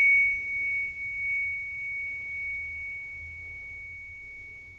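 A meditation bell ringing on after being struck: one high, pure tone dying away slowly, its fainter upper overtone gone within the first half second.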